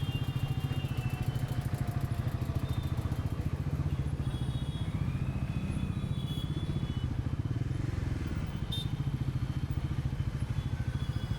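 Bajaj Pulsar NS400's single-cylinder engine running steadily under way, a rapid even low pulse with no change in revs.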